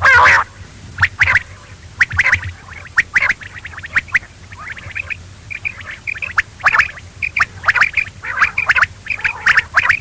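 Quail calling: a loud call right at the start, then a stream of short, sharp notes repeated several times a second.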